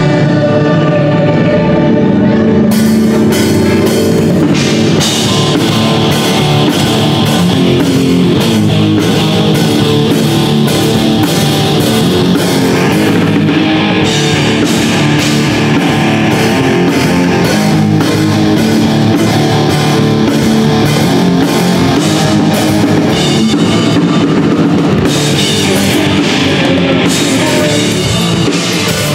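Live alternative rock band playing loud: electric guitars and bass over a drum kit, with the drums and cymbals coming in about three seconds in.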